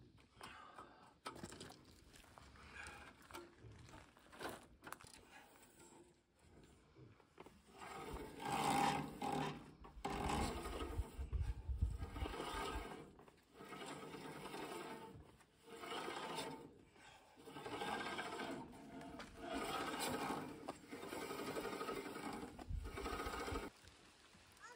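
The band wheels and blade of a Woodland Mills portable bandsaw mill being turned over by hand. Quieter handling sounds give way, about eight seconds in, to a run of louder pushes, one every couple of seconds.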